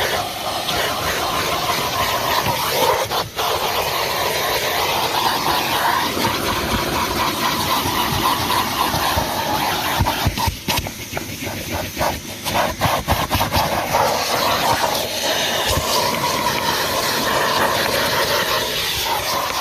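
Numatic Henry HVR200P tub vacuum cleaner running, a steady rushing suction noise. For a few seconds around halfway the sound flutters and dips unevenly.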